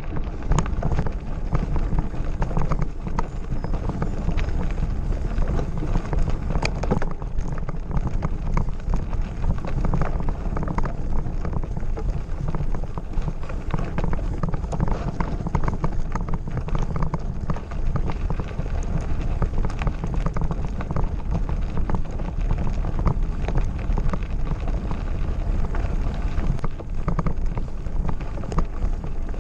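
Mountain bike ridden over a rough gravel road: a dense, continuous rattle of small knocks and crunches over a low rumble.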